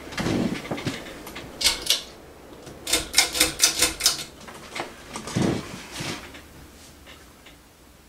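A Harbor Breeze Lynstead ceiling fan's pull chain being worked, with sharp clicks about two seconds in, then a quick run of about seven clicks and rattles about three seconds in. Dull thumps come at the start and about five and a half seconds in.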